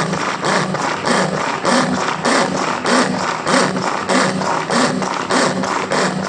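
Knife chopping garlic on a cutting board, sharp strokes in a steady rhythm of about three a second.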